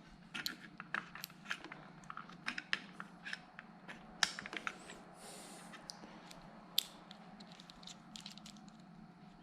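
Irregular small clicks and taps of hand tools and metal parts being handled while a tight screw on a motorcycle handguard mount is worked in, with a brief rustle about five seconds in, over a low steady hum.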